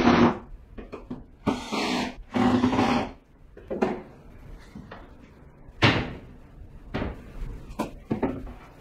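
Household objects being handled in a small room: a knock at the start, two longer rubbing scrapes over the next few seconds, then a sharp knock about six seconds in and a few lighter knocks after it.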